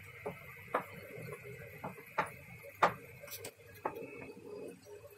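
About six light, sharp clicks and knocks at irregular intervals, the strongest a little after two seconds in and just before three seconds, over a faint steady high hum.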